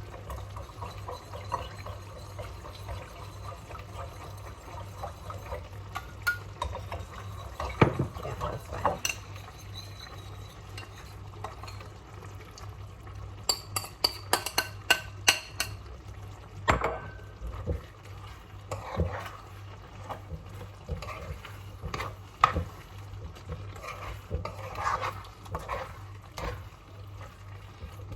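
A utensil stirring and clinking against a cup and a pot as cornstarch is mixed with corn liquid and chicken stock into a slurry for thickening the chicken pie filling. A quick run of clinks comes about halfway through, over a low steady hum.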